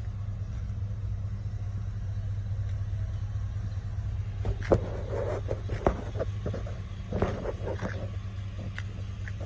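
Steady low rumble of a vehicle engine idling, with a few short clicks and scuffs in the middle.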